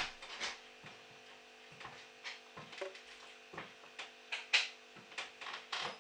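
Dripping tap: drops of water falling and landing with short, irregular plinks, roughly one or two a second, one about halfway through giving a brief falling tone, over a faint steady hum.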